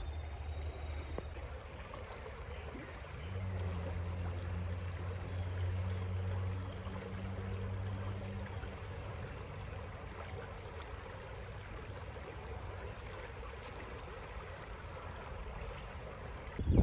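Rocky creek flowing over stones, a steady rush of running water. From about three seconds in to about eight, a low steady hum sits under the water sound.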